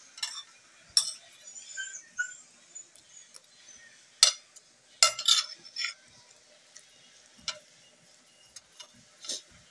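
Metal spoon and fork clinking and scraping against a ceramic plate while eating. There are a dozen or so sharp clinks; the loudest come about a second in and in a cluster around four to five and a half seconds in.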